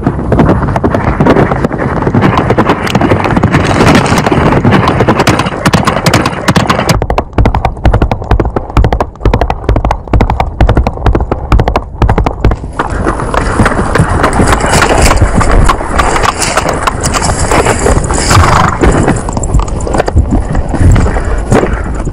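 Horse galloping: fast, continuous hoofbeats, heard most distinctly as separate strikes in the middle stretch.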